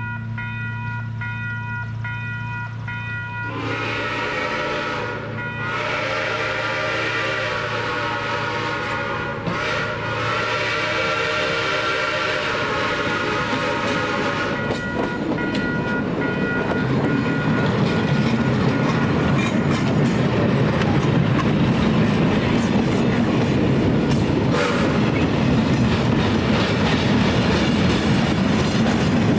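Steam whistle of a 2-8-0 steam locomotive blowing three long blasts over a bell ringing steadily. After the whistle stops, about halfway through, the running locomotive and freight train grow steadily louder as they approach.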